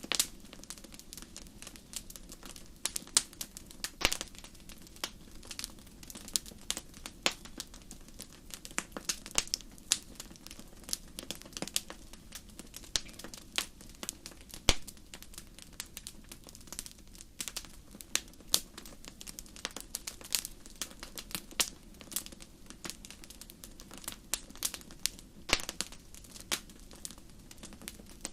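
Fireplace wood fire crackling: irregular sharp snaps and pops, often several a second, over a steady low rumble.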